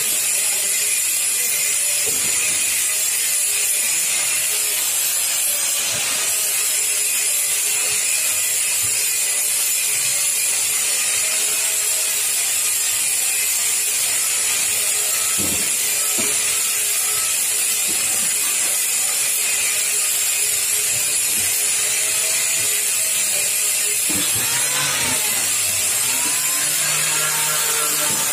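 Angle grinding on stainless steel sheet: a steady, high-pitched grinding noise that goes on throughout, with a few knocks. Near the end a grinder's pitch rises and falls as it is worked against the sheet.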